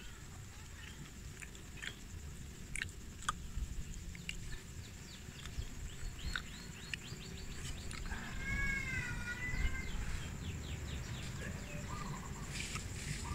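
Outdoor ambience with a low wind rumble and scattered small clicks. About eight seconds in, a wavering animal call lasts about a second and a half, just after a rapid series of short chirps.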